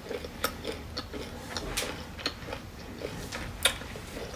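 A person eating close to the microphone: quiet chewing with scattered sharp clicks, a few spaced about half a second to a second apart.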